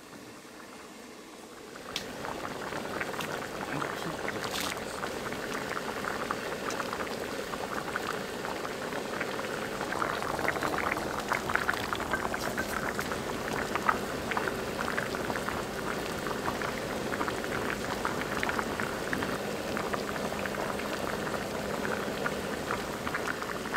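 A pan of doenjang jjigae (soybean-paste stew with beef brisket) boiling: dense, crackling bubbling with a few sharper clicks. It is softer for the first two seconds, then louder and steady.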